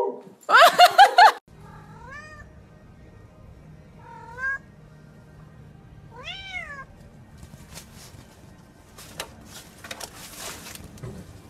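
A dog giving a quick, loud run of four or five short, high calls. Then a cat meows three times, each meow rising and falling in pitch, about two seconds apart, followed by light clicks of its paws on a window frame near the end.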